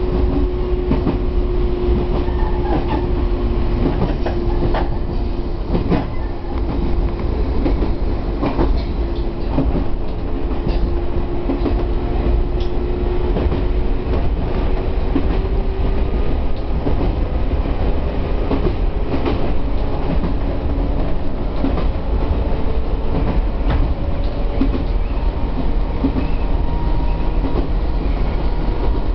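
Chichibu Railway 1000 series electric train (former JNR 101 series) running, heard from the driver's cab. There is a low rumble of wheels on rail, scattered clicks as the wheels cross rail joints, and a steady whine that fades about halfway, with a higher whine coming in later.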